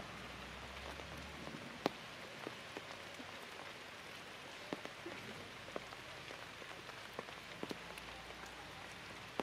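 Light rain falling on forest leaves: a steady hiss with scattered single drops ticking close by, one sharper tick about two seconds in.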